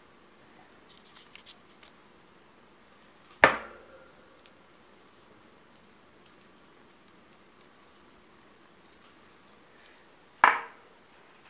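Two sharp knocks about seven seconds apart, each ringing briefly, with faint small clicks between them.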